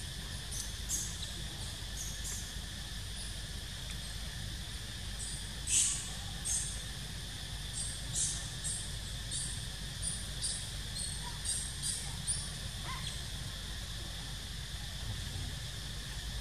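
Forest ambience: a steady high insect drone, with many short, high chirps scattered throughout, the loudest about six seconds in.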